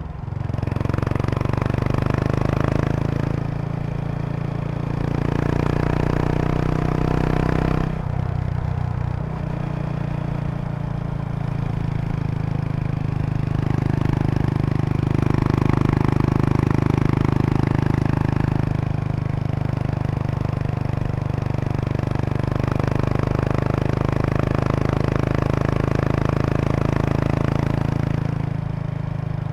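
Exhaust of a 2003 Kawasaki Estrella RS's air-cooled 250 cc single-cylinder engine through an aftermarket Yamato muffler while riding, the engine note easing off briefly about eight seconds in and swelling again mid-way. A light buzzing rattle rides along with it: the seat bag's stiffening board resonating with the bike's vibration.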